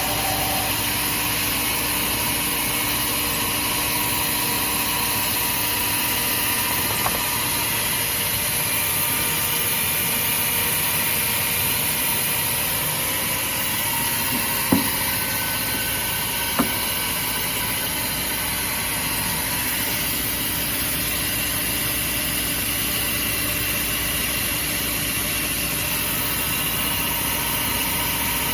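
Heavy double-head horizontal band saw running, a steady machine drone with hiss. A faint tick comes about a quarter of the way in, and two sharp knocks come around the middle.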